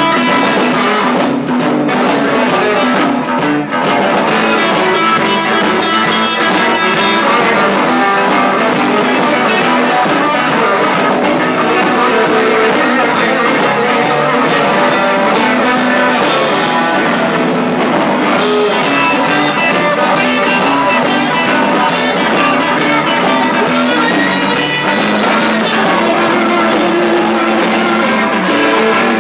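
Live rock band playing, with amplified electric guitars, bass guitar and drums.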